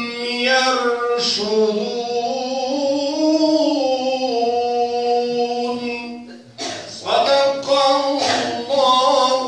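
A man reciting the Qur'an in a melodic, chanted style, his solo voice holding a long ornamented note that slowly rises and falls. About six and a half seconds in he breaks briefly for breath, then starts the next phrase with shorter notes.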